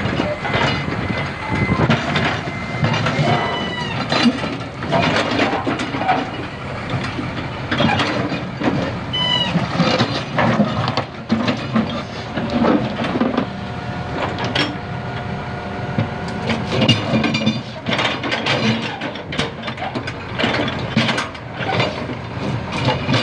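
Hydraulic excavator's diesel engine running under load as its bucket scrapes and knocks among broken concrete road slabs, with repeated clanks and a few short, high squeals. A steady hydraulic-sounding whine rises over the engine for a few seconds past the middle.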